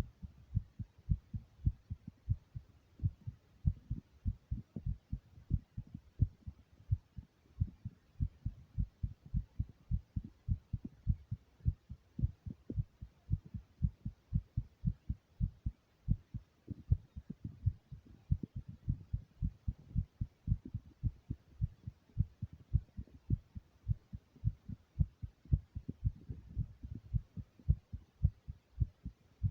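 A person's heart beating: a steady train of low, dull lub-dub thumps. The uploader says the recording shows how excited and nervous they were.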